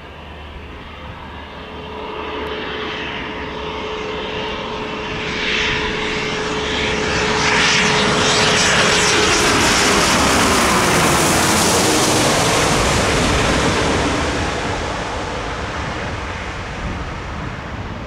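Gulfstream G650 business jet landing, passing low overhead with its two Rolls-Royce BR725 turbofans. The engine rush swells to a loud peak about halfway through, then fades as the jet heads for the runway. A steady whine drops in pitch as it goes by.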